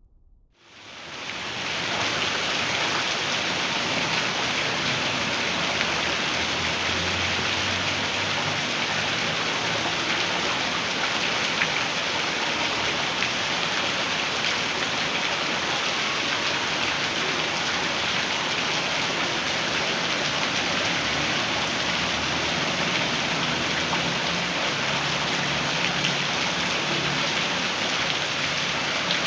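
Heavy rain pouring steadily, fading in over the first couple of seconds, with a faint low rumble underneath at times.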